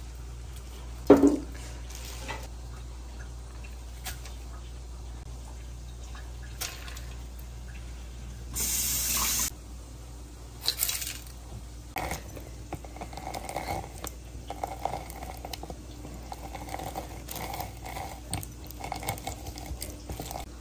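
Kitchen work sounds over a steady low hum: a sharp knock about a second in, a tap running for about a second near the middle, then scattered clinks and handling noises.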